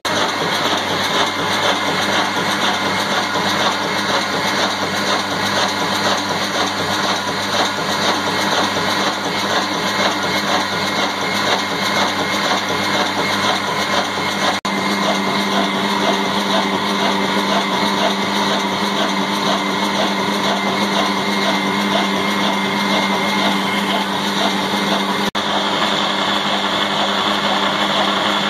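Old Ruston Hornsby single-cylinder horizontal diesel engine running steadily with its big flywheel turning, driving a flour mill (chakki) that is grinding, a dense continuous mechanical din. The sound breaks off for an instant twice, about halfway and near the end.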